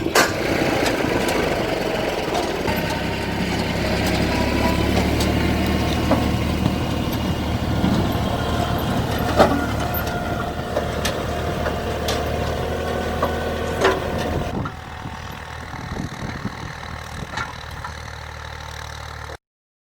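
Tractor engine running steadily while pulling an automatic potato planter, with scattered sharp clicks and knocks. About fifteen seconds in the sound drops to a lower level, and it cuts off abruptly just before the end.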